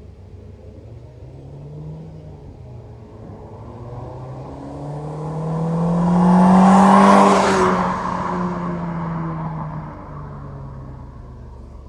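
Citroën C4 VTS coupé with its 2.0-litre four-cylinder petrol engine and stock exhaust driving past under acceleration: the engine note climbs as it approaches, is loudest about seven seconds in, then drops in pitch and fades away as the car passes.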